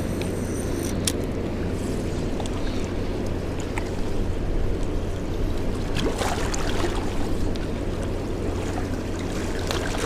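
Steady outdoor rushing noise of wind on the microphone and flowing river water, with a low steady hum underneath.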